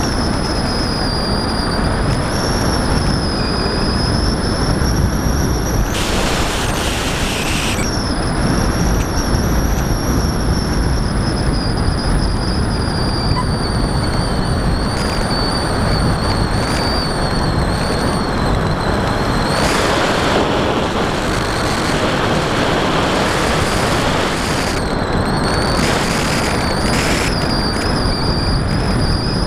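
Electric RC plane heard from its onboard camera in flight: the Turnigy D3536 brushless motor and 8x6 propeller give a high whine that wavers in pitch with throttle, over loud, steady wind rush. The whine breaks off for about two seconds around six seconds in.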